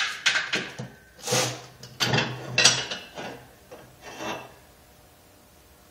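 Metal wheel-hub parts scraping and clinking as a hub is slid onto and off freshly ground wheel studs to test the fit. A string of scrapes and knocks stops about four seconds in. The fit is still slightly tight.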